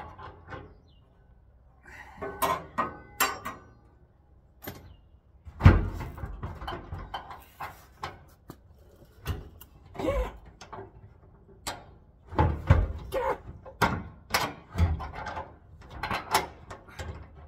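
Irregular metal knocks, clunks and scrapes as a car's fuel tank is wrestled and forced up into place under the body.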